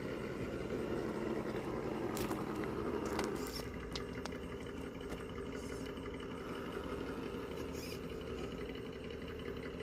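Scale RC rock crawler's electric motor and geared drivetrain running steadily as it crawls, a little louder in the first few seconds, with a few light clicks.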